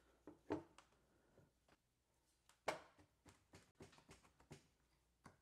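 Faint, scattered clicks and taps of metal parts being handled: the Briggs & Stratton Intek engine's aluminium sump cover being settled on the block and its bolts set in place. Two taps, about half a second and near three seconds in, are a little louder than the rest.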